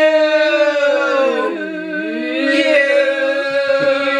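Howling by more than one voice: long held notes sounding together, one sliding down and back up about halfway through.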